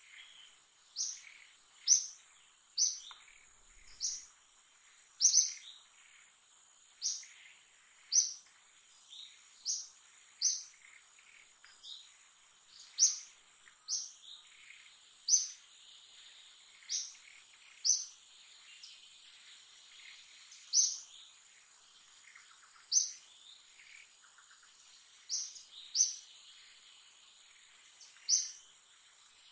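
A bird giving short, high chirps over and over, about one a second at an uneven pace, over a steady high-pitched insect drone.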